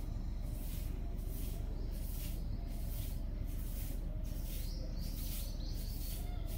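Outdoor background noise: a steady low rumble with short, high hissy bursts about twice a second, and a brief high chirp a little after four seconds in.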